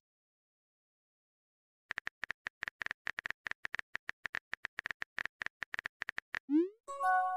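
Chat-app sound effects: simulated phone-keyboard typing, a quick, irregular string of clicks for about four seconds, then a short rising swoosh as the message is sent and a brief chime near the end.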